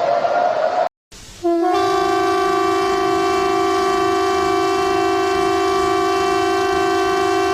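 A rising siren wail cuts off just under a second in. After a brief gap, a steady horn-like alarm tone with several pitches sounding together starts and holds unchanged.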